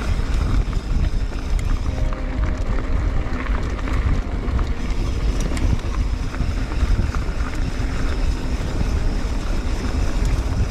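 Wind rushing over the microphone and the steady rumble of mountain bike tyres rolling over dry, rocky dirt singletrack, with scattered small clicks and rattles.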